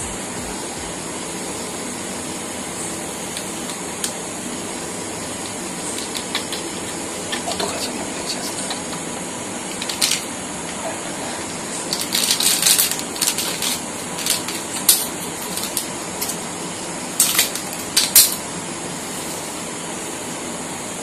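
A plastic-foil sachet of Eno fruit salt being handled and torn open: scattered crinkles and crackles, mostly in the second half, over a steady hiss.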